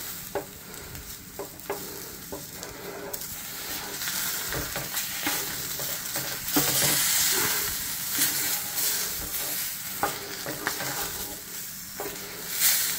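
Bratwursts sizzling in a frying pan while tongs turn them, with scattered light clicks of the tongs against the pan. The sizzle swells louder for a few seconds midway.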